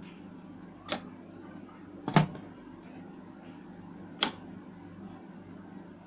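Three sharp mechanical clicks, each one to two seconds after the last, the middle one a loud double click, over a steady low electrical hum.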